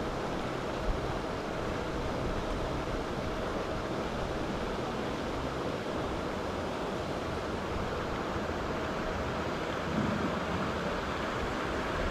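Steady rushing noise of wind on the microphone mixed with water being churned by a pond aerator, with a brief knock about a second in.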